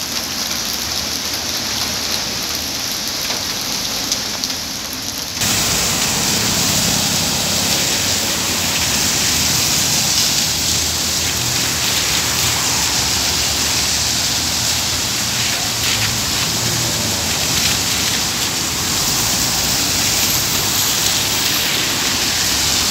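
Steady rain falling on wet paving during a summer shower. About five seconds in the sound steps up suddenly louder, the rain hiss joined by a low rumble of traffic on the wet street.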